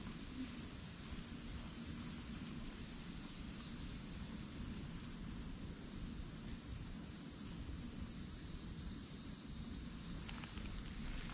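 Steady, high-pitched buzzing drone of insects, over a low background rumble.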